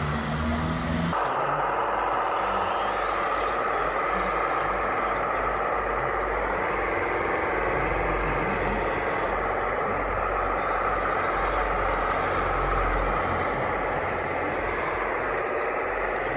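Radio-controlled construction model's electric motor running with a steady high whine; about a second in, a lower engine-like hum stops and the whine carries on.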